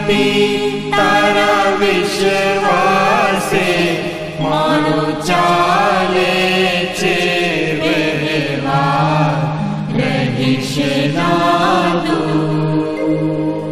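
Hindu devotional chanting: voices sing a melodic chant over a steady drone.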